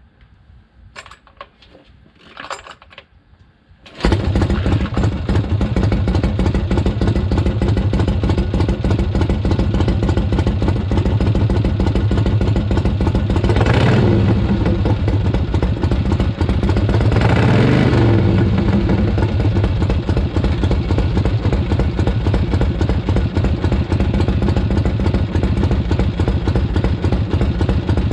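1971 Harley-Davidson Sportster XLCH Ironhead's air-cooled V-twin being kick-started: after a few short knocks it catches about four seconds in and runs, with freshly adjusted pushrods. The throttle is blipped twice, the engine note rising and falling each time, before it settles back to a steady run.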